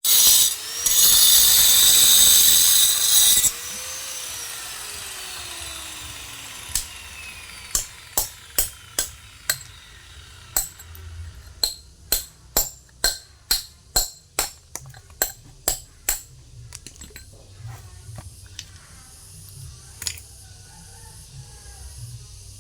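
A power tool runs with a loud, high, hissing whine for about three seconds, then cuts off and winds down with a falling pitch. Then comes a run of sharp taps, about two a second, then a few scattered ones, fitting a hammer and chisel striking stone while a cobek is carved.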